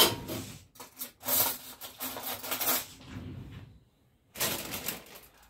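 Kitchen handling sounds: a sharp knock at the start, then scraping and rustling, with a short scrape of a spoon digging salt out of a ceramic salt pot near the end.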